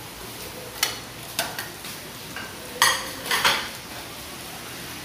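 A small kitchen knife peeling a chunk of squash by hand: about five short, irregular scraping strokes, the loudest near three seconds in.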